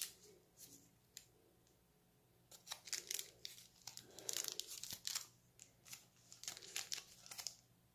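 Packaging being handled: faint crinkling and rustling in irregular clusters of crackles, starting about two and a half seconds in and stopping shortly before the end.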